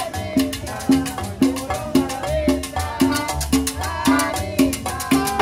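Latin dance music from a small live band, with timbales, bass and a steady beat of about two hits a second.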